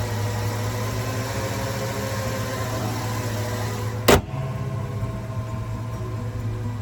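Jeep Grand Cherokee engine idling steadily, running again after a crank-but-no-start fault. A single sharp click cuts across it about four seconds in.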